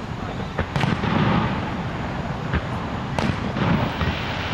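Fireworks display: aerial shells bursting with several sharp bangs, the strongest about a second in and about three seconds in, over a steady rushing background noise.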